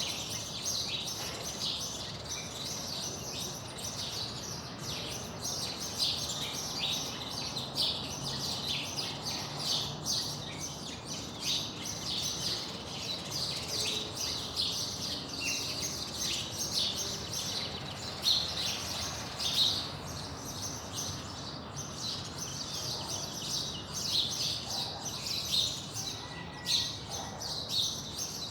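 Dawn chorus: many small birds chirping and singing at once, a dense, continuous twittering with no pauses.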